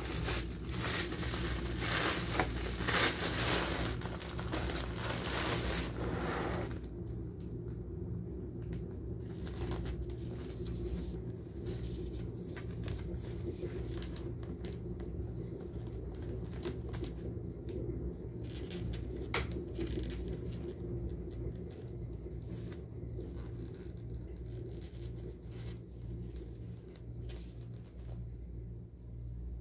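Plastic bread bag crinkling as it is opened and handled for about six and a half seconds. Then a steady low hum, with a few faint clicks and taps of bread being handled on a plastic tray.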